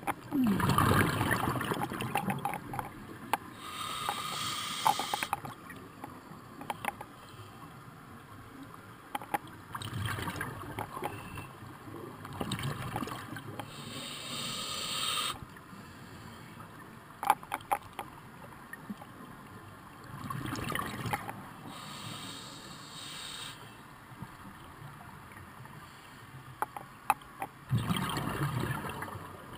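Scuba diver breathing through a regulator, heard underwater through the camera housing: slow cycles of a rumbling, gurgling burst of exhaled bubbles, then a short hiss of inhalation, with scattered small clicks.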